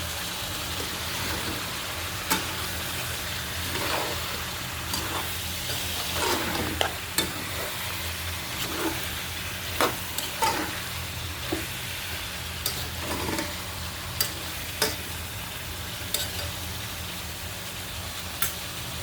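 Vegetables frying and sizzling in oil in a pan while they are stirred, with a sharp clink of the spatula against the pan every second or so.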